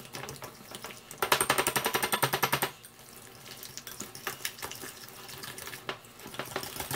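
Wire whisk beating a thick cream cheese and mayonnaise mixture by hand in a glass bowl, a run of quick strokes. About a second in comes a stretch of faster, louder whisking that lasts about a second and a half, then slower, quieter strokes.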